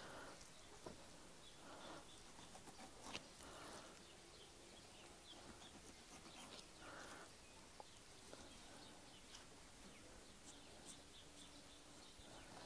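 Near silence, with faint soft sounds of a boning knife slicing through a raw pork neck on a wooden board, and a few faint ticks.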